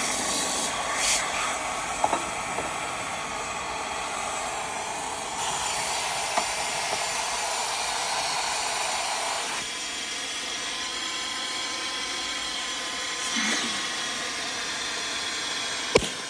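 Handheld car vacuum cleaner running: a steady rush of air with a motor whine. The sound shifts about five seconds in and again near ten seconds, with a few light clicks and a sharp click near the end.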